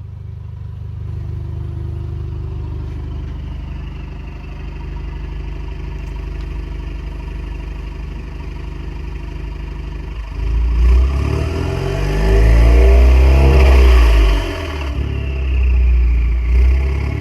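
Alfa Romeo Giulia's 2.0 turbocharged four-cylinder with a straight-piped exhaust, running steadily. About ten seconds in it revs up hard several times, the exhaust note rising and falling, with the turbo whistling above it.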